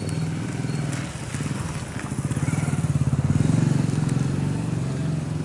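A road vehicle's engine running close by, growing louder about three seconds in and then easing off.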